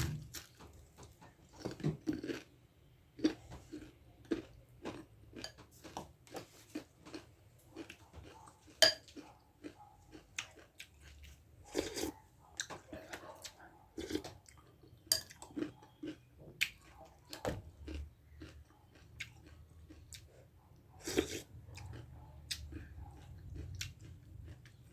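A person chewing and biting food close to the microphone: a steady run of irregular wet mouth clicks and smacks, a few of them crunchy, during a meal of dhido, gundruk soup, kofta and salad.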